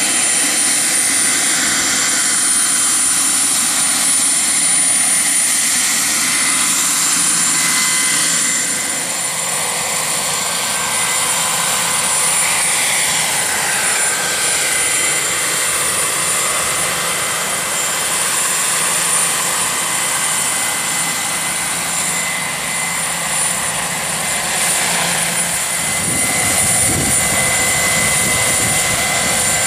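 Turbine-powered radio-controlled scale model Mi-24D Hind helicopter flying: a steady high turbine whine over the rotor noise. About halfway through the pitch glides down once.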